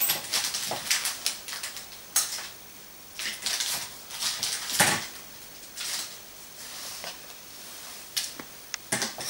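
A metal podiatry hand instrument working at a toenail, making short, irregular scratchy clicks with a few longer scrapes.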